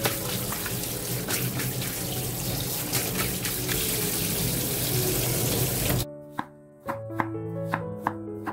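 Cold tap water running steadily onto raw chicken pieces in a stainless steel colander in the sink, cutting off abruptly about six seconds in. Then a knife cuts through peeled potatoes on a wooden cutting board in about six sharp strokes.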